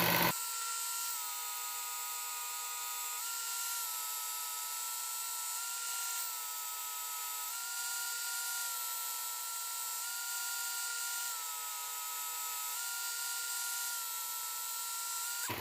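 Work Sharp Ken Onion knife sharpener running with its 220-grit belt, a steady high motor whine whose pitch steps slightly down and back up every second or two as the blade is worked on the belt. The knife edge is being ground to remove the 120-grit scratches.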